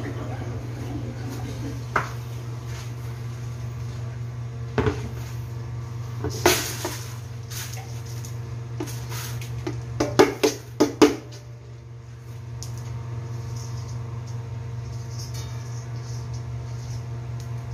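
Stainless steel mixing bowl knocking and scraping against a plastic basin as yellow glutinous rice is tipped out of it, with a short rush of pouring grains about six seconds in and a quick run of clanks around ten seconds, over a steady low hum.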